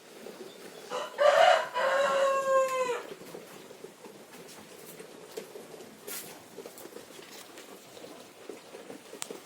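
A rooster crowing once, about a second in: a rough opening followed by a long held note that drops away at the end. Faint scattered ticks and rustles before and after.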